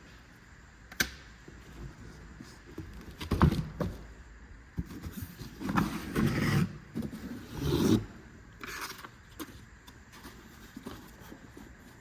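Clutch kit parts being handled: a sharp click about a second in, a heavy thump a little after three seconds, then a few seconds of scraping and rustling, with a few light clicks and clinks later.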